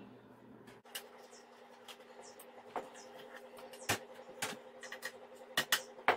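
Light clicks and taps of a screwdriver and hands working on a computer power supply's metal case. A faint steady hum comes in suddenly about a second in, and a few brief high chirps sound over it.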